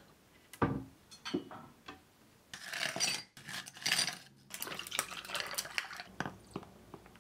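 Ice cubes scooped and dropped into a glass mug, clattering and clinking against the glass in several bursts, after a single knock near the start; water is then poured over the ice from a plastic bottle.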